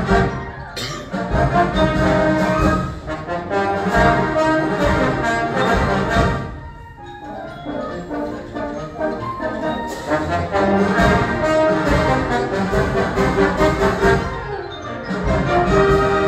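Student concert band playing live: full brass and woodwinds over percussion hits. The loud passages ease off briefly about six seconds in and again near the end before building back up.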